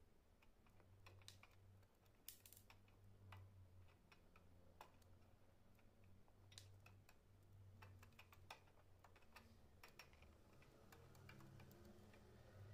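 Near silence: faint, irregular light clicks of a soldering iron and solder wire touching the thin wires of a grill basket while broken wires are soldered, over a faint low hum.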